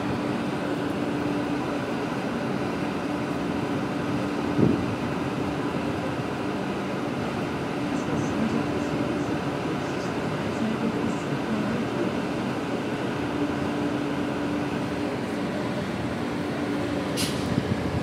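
Electric commuter train rolling slowly, heard from beside its side: a steady rumble with a held hum. A single clank comes about four and a half seconds in, and a brief high-pitched squeal comes near the end.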